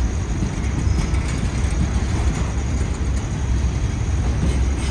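Slow-moving goods train of covered freight wagons rolling past on the rails: a steady low rumble of wheels on track, with occasional faint clicks.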